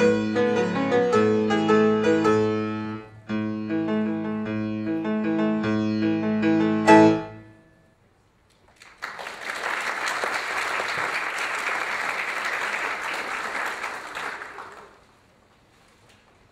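Piano music with clear notes and chords ends on a loud final chord about seven seconds in; after a short pause an audience applauds for about six seconds, then the applause dies away.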